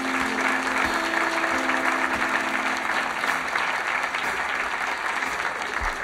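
Audience applauding steadily, with a soft held chord from the band underneath.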